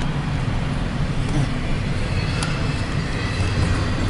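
Intermodal freight train rolling past: a steady low rumble of wheels on rail.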